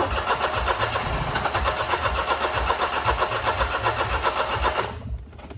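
2009 Smart Fortwo's three-cylinder petrol engine cranking on the starter in an even rhythm for about five seconds without catching, then cut off. It is a hard cold start from low fuel pressure, about 30 PSI instead of 50, which the owner puts down to a weak fuel pump.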